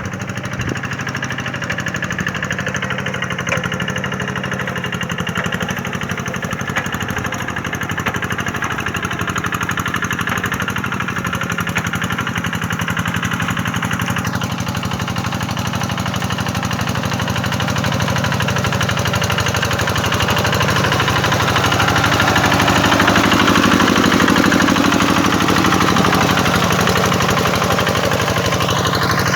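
Tractor engine running steadily, getting louder for a few seconds past the middle.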